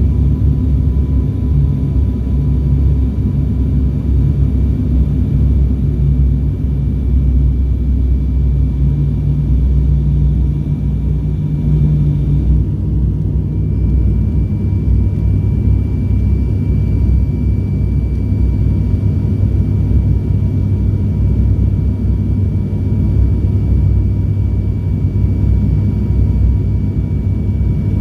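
Cabin drone of an ATR 72-600's twin Pratt & Whitney PW127 turboprops on approach to landing, a steady low hum with a thin high whine over it. About twelve seconds in, the hum and the whine shift briefly, as with a change in engine power.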